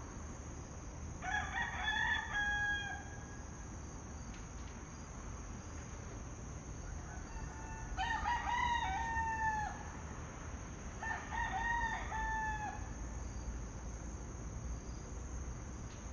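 Roosters crowing: three cock-a-doodle-doo calls, the first about a second in, the next two around eight and eleven seconds in, over a steady background hiss.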